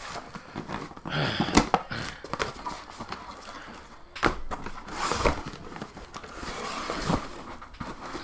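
A shipping package being torn open by hand: irregular tearing and rustling of packaging, with several sharp clicks and knocks as the contents are handled.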